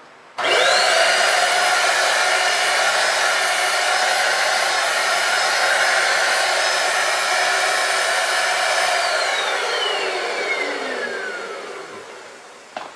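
Shark Multi-Task stick vacuum's motor switched on, whining up to speed within a moment and running steadily, then switched off about nine seconds in and winding down with a long falling whine. Its filter is clogged, so it runs with almost no suction.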